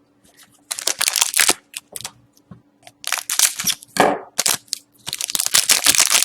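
Hockey trading cards being handled and slid against one another, rustling and scraping in three spells with short pauses between.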